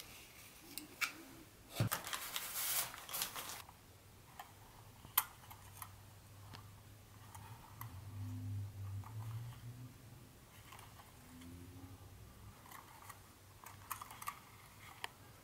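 White cotton-gloved hands handling a small plastic HO-scale model passenger car and its packaging: soft rustling with scattered light plastic clicks and taps, and a longer rustle lasting over a second starting about two seconds in.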